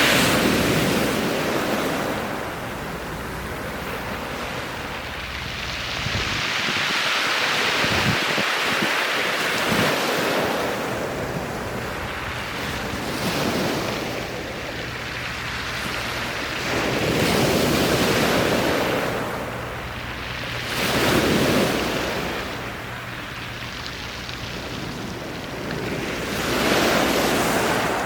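Sea waves breaking on a beach, the surf swelling and falling away every few seconds.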